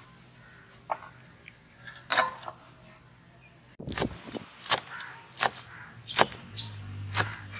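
Cleaver chopping green chillies on a wooden cutting board: about six sharp chops, a little under a second apart, in the second half. Before that, a few scattered knocks, the loudest about two seconds in.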